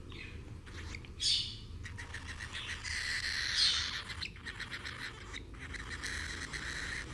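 Lutino cockatiel calling: two short chirps near the start and about a second in, then a longer run of rapidly pulsing chatter from about two seconds in that trails off more faintly.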